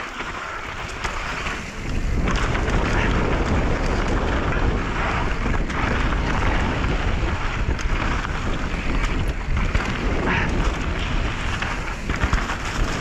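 Mountain bike riding fast down a rough trail: wind rushing over the microphone, tyres rolling over dirt and stones, and the bike rattling with many scattered clicks and knocks. The rumble gets louder about two seconds in.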